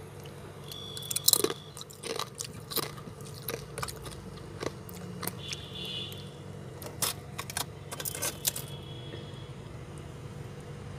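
Freezer frost ice crunching and cracking in irregular sharp crunches, the loudest about a second in, over a steady low hum.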